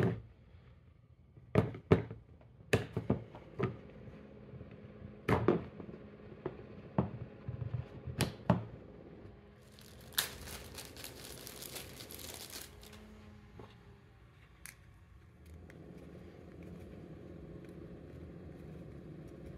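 Workbench handling noise. Over the first nine seconds there are several sharp clicks and knocks as parts are picked up and set down, and about ten seconds in a clear plastic zip-top parts bag crinkles for about three seconds as it is opened.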